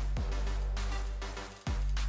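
Background music with a steady deep bass and held tones; it fades down about a second and a half in, then cuts straight back in.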